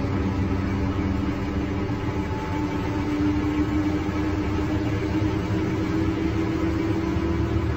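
Scania K310 bus's rear-mounted five-cylinder DC09 diesel engine running under way, heard from inside the bus. Its pitch climbs slowly through the second half as the revs rise.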